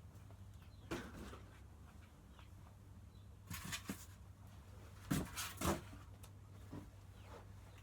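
Dayton Hi-Tech 56-inch industrial ceiling fan running with a faint steady low hum. Several sharp knocks break in: one about a second in, a cluster near four seconds, and two close together just after five seconds.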